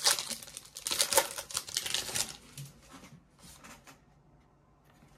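Foil Pokémon trading card booster pack wrapper crinkling and being torn open, loud and crackly for about two seconds, then dying down to faint rustling.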